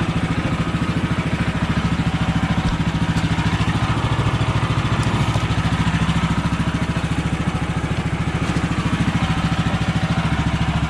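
Gas engine of an HM130 Max portable sawmill idling steadily, warming up after a cold start from sitting for weeks.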